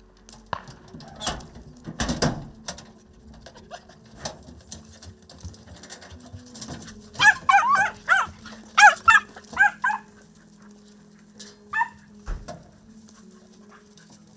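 Podenco hunting dogs yelping in a quick run of about ten high calls in the middle, with one more yelp a couple of seconds later. A few knocks and a low thump come about two seconds in.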